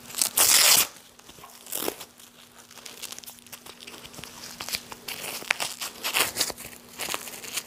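Nylon hook-and-loop strap of a practice CAT tourniquet being handled as it is wrapped around an upper arm and pulled tight: a loud rasping rip about half a second in, then scattered shorter rustles and scrapes of the strap.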